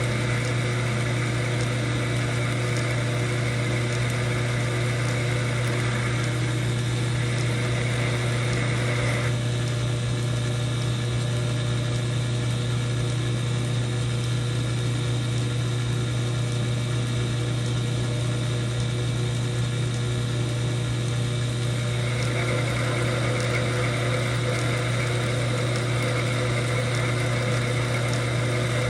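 Old metal lathe running steadily with a constant low hum. A higher whine drops away about nine seconds in and comes back around twenty-two seconds in.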